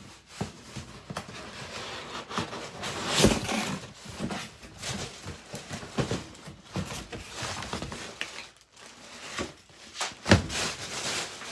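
A cardboard shipping box being handled and opened by hand: scraping, rustling and tearing of cardboard and tape, with several sharp knocks. The loudest knocks come about three seconds in and near the end.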